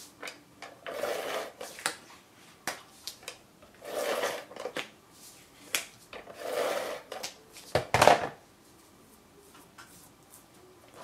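Double-sided tape runner drawn along the edges of a card base, three rasping strokes about a second long with small clicks between, then the dispenser knocked down on the work table just before 8 seconds, the loudest sound.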